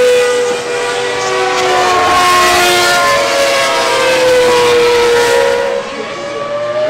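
Ferrari Formula 1 car engine running at high revs past the track, one high-pitched note that sags slightly in pitch and climbs again near the end.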